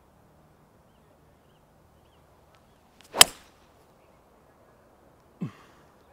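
A 3-wood striking a golf ball: one sharp, loud crack about three seconds in. About two seconds later comes a shorter, weaker sound that falls quickly in pitch.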